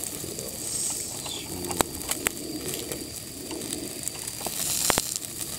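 Chicken thigh pieces and a thick omelette sizzling over a small charcoal grill, with scattered sharp clicks and crackles; the loudest click comes near the end. A low wavering sound runs underneath for much of it.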